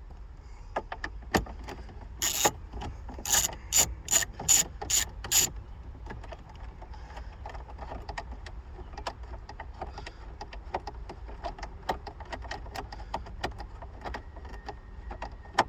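Ratcheting tool clicking as a T25 Torx screw is backed out: a handful of loud sharp clicks a few seconds in, then a long run of fainter, rapid ticking.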